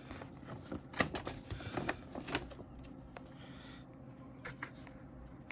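Paper rustling and light taps from unfolding a fold-out CD booklet, busiest in the first two and a half seconds, then quieter.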